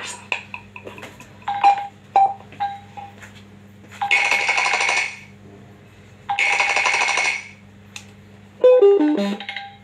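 Phone ringtone ringing in two bursts of about a second each, a rhythmic buzzy ring, followed near the end by a short falling run of tones.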